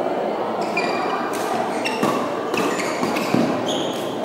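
Badminton rally: several sharp racquet hits on the shuttlecock, about one every half to one second, with short high sneaker squeaks on the court floor, over the steady din of a large echoing sports hall.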